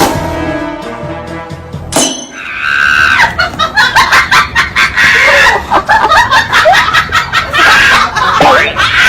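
Background music, cut by a sharp crash about two seconds in, followed by loud, high-pitched shrieking cries.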